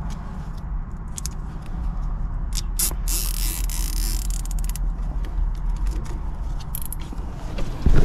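Hands handling low-voltage control wires inside an air-conditioner condenser: small clicks and rustling, with a scraping hiss lasting over a second about three seconds in. A steady low rumble runs underneath.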